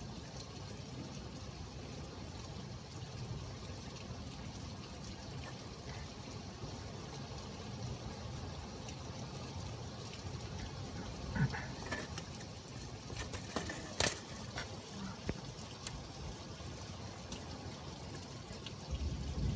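Steady rain with water trickling and pouring, during a thunderstorm. A few sharp clicks come about two-thirds of the way through, and a low rumble sets in near the end.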